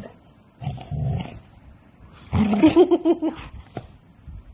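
A dog giving two gruff, growly vocal calls: a shorter one about a second in, then a longer, louder one with a wavering pitch.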